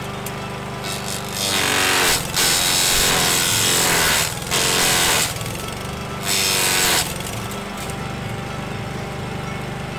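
Masport petrol rotary lawn mower running steadily. From about a second and a half in until about seven seconds in come four loud bouts of shredding, as leafy branches are pushed into the spinning blade. Each time the engine drops in pitch under the load.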